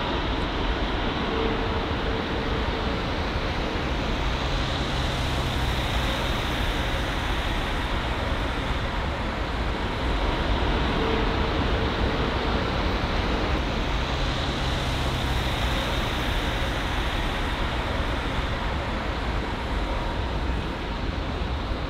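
Airbus A320neo jet engines on final approach and landing: a steady, even rush of engine noise.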